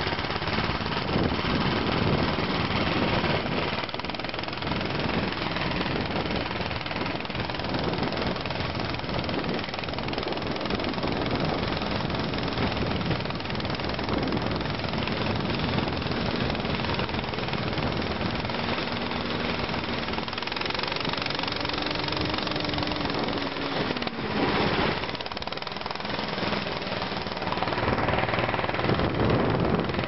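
Snowmobile engines running steadily as the machines travel over snow.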